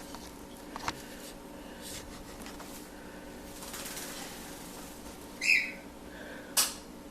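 A pet parrot gives one short call about five and a half seconds in, with a sharp click about a second later and a soft rustle of wet feathers or splashing before it, over a steady low hum.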